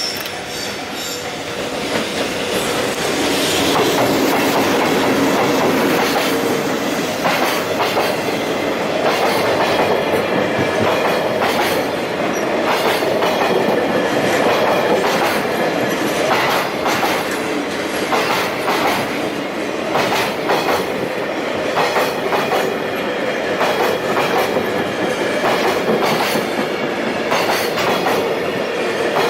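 Freight train hauled by an EH200 twin-unit electric locomotive passing close by. Its steel wheels clack in quick runs over the rail joints above a continuous rolling rumble, which swells over the first few seconds.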